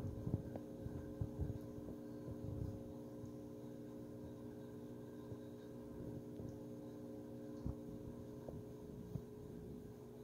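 Steady low electrical hum of running aquarium equipment, with a few soft low knocks in the first few seconds and one more near the end.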